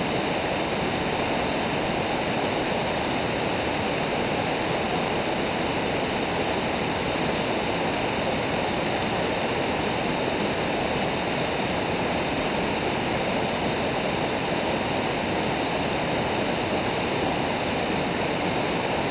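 Steady rush of river water pouring over shallow rock-ledge cascades and rapids close by, even and unbroken throughout.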